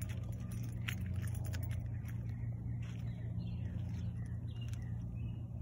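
Steady low hum with scattered light clicks, and a few faint high chirps in the second half.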